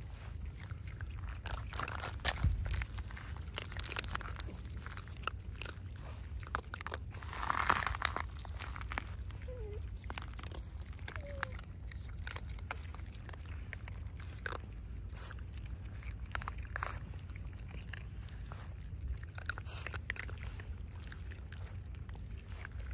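Raccoon dogs crunching and chewing hard food pellets, with many small crisp crunches scattered throughout over a steady low rumble. A brief louder rush of noise comes about eight seconds in.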